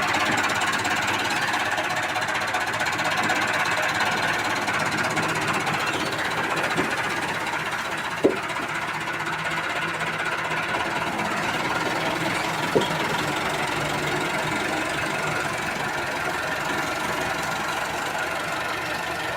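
Combine harvester running steadily, with two short sharp knocks a few seconds apart partway through.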